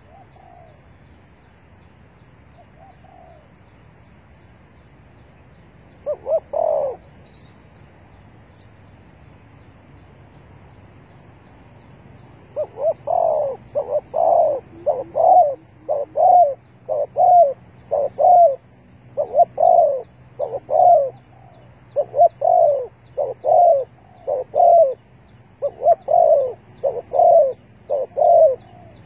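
Spotted dove cooing. There are a couple of faint coos, one louder call about six seconds in, then from about twelve seconds a run of coos at roughly one a second.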